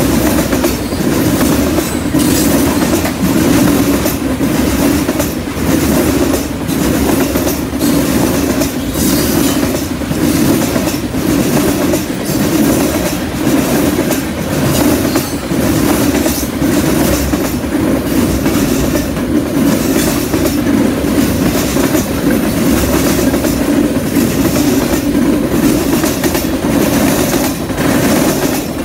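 Freight train's covered hopper and tank cars rolling past, a steady rumble of steel wheels on rail with frequent clicks and clacks from the wheel sets.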